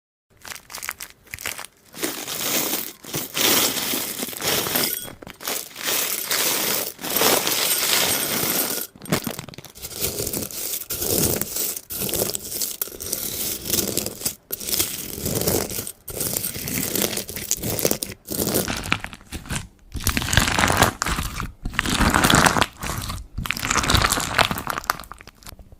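Slime being squeezed, pressed and pulled by hand, giving dense crackling, popping and crunching with many sharp clicks in uneven bursts.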